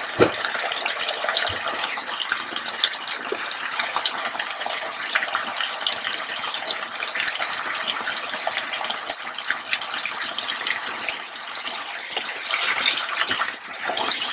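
A chicken and vegetable stir-fry sizzling in an electric skillet: a steady dense hiss full of tiny pops, with a short low knock just after the start.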